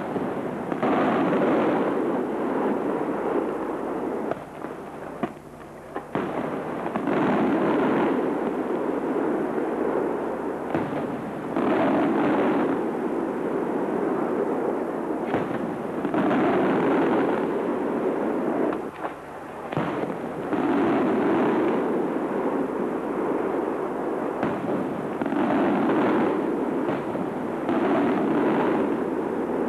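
Aerial firework shells bursting one after another, about every four to five seconds, each loud burst trailing off over several seconds before the next.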